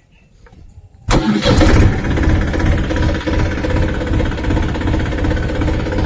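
Tractor engine starting up about a second in, loudest for a moment, then settling into steady running with a fast low pulsing.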